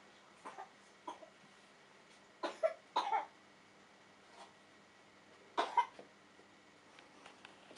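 Three-spot gouramis making short, rough croaking pulses, some single and some in quick pairs, about six in all. The loudest come about two and a half to three seconds in and again near six seconds, over a faint steady hum.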